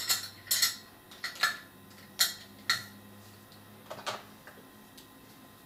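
About ten light, irregular clicks and taps of makeup containers and a brush being handled, as setting powder is taken up; they thin out and grow fainter after about three seconds.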